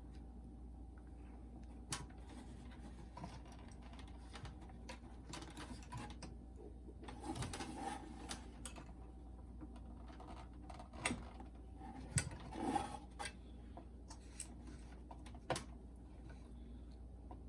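Plastic boombox casing being handled and pried apart: scattered clicks, knocks and rattles as the front cover is worked loose from the latches, with a sharp click about 2 s in and louder flurries of clicking a third of the way through and again about two-thirds through.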